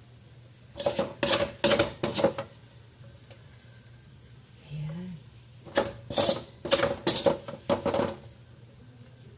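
Metal spatula scraping and scooping fried rice against a metal wok, in two runs of quick strokes: about four starting a second in, and five or six starting about six seconds in.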